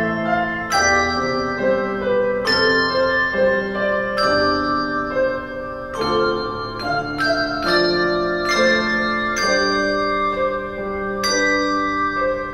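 Handbell quartet playing a prelude: chords of handbells struck every second or so, each ringing on and overlapping the next.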